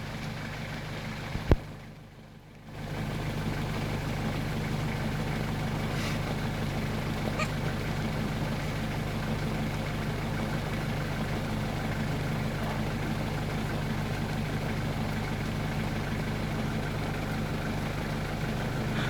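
A vehicle engine idling steadily, with a sharp click about a second and a half in and a brief drop in level just after.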